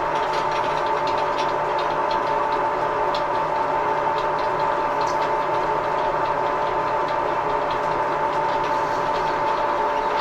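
Edgwick lathe running steadily while turning down a nylon bar, with a constant gear whine and faint scattered ticks.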